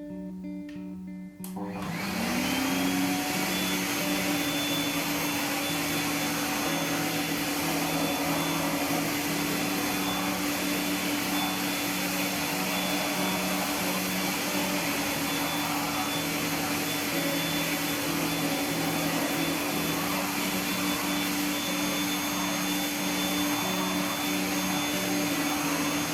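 An electric appliance motor switching on about a second and a half in, its whine rising quickly as it spins up, then running steadily with a loud rushing noise and a constant hum.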